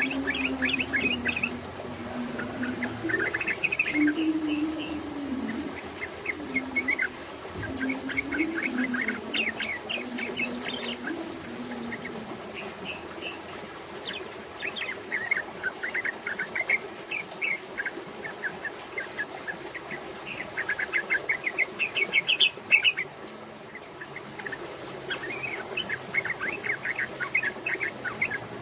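Female yellow-vented bulbul (trucukan) singing in repeated bursts of rapid, chattering notes: the fast-repeated 'ropel' delivery of a bird in full song. A low wavering tone runs underneath for roughly the first half.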